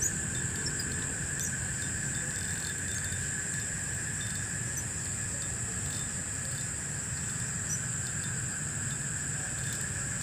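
Night-time insect chorus trilling continuously in two steady high bands, over a low steady rumble.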